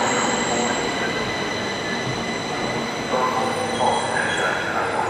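Stockholm metro train moving along the platform: steady rumble of the cars with a high, steady whine layered on top.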